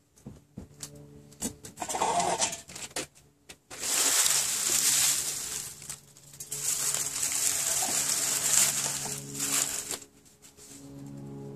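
Kindling fire of dry leaves and small twigs catching in a small tin-can hobo stove: scattered sharp crackles, then long stretches of hissing crackle as it takes hold. A faint steady hum runs underneath.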